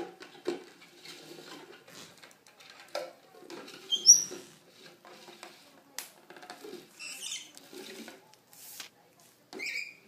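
Clear plastic bowl skittering and scraping over a wooden floor as a lovebird pushes it from underneath, with a few short high chirps from the bird, the loudest about four seconds in.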